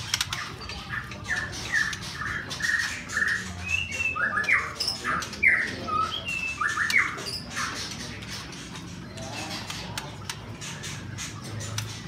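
Caged songbirds calling: many short, sharp calls with quick rises and falls in pitch, crowded together for most of the first seven seconds, then thinning out.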